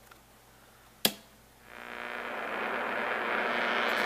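A 1964–65 Buick Delco AM push-button car radio is switched on with one sharp click about a second in. Half a second later a steady static hiss with a low hum rises and holds as the set comes on, not yet tuned to a station.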